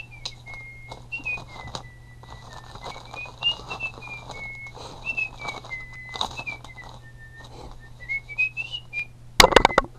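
A person whistling a slow, wandering tune, one note sliding smoothly up and down, over a steady low hum and scattered clicks. A loud clatter near the end.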